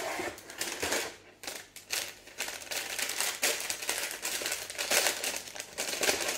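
Brown kraft paper crinkling and rustling as it is unwrapped and pulled open by hand, in quick irregular crackles.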